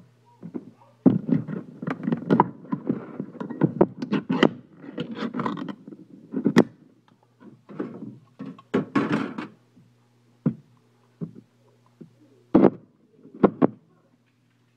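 A can of wet dog food being handled and emptied into a stainless steel dog bowl: a run of metallic clatter and scraping, then a few separate sharp knocks of the upturned can against the bowl near the end.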